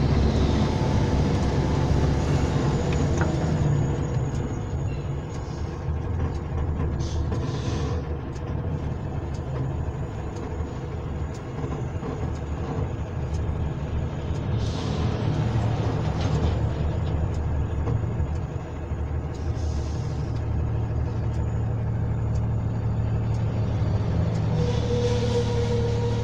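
Heavy vehicle's engine running steadily at low speed in slow downhill traffic, heard from inside the cab. A few short hisses of compressed air, typical of air brakes, come at intervals of several seconds.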